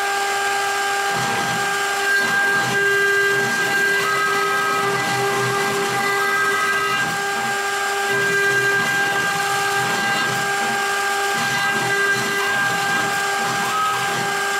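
CNC router spindle running with a steady high whine while its pointed bit engraves into a wooden board. The rougher cutting noise beneath the whine rises and falls as the bit moves through the wood.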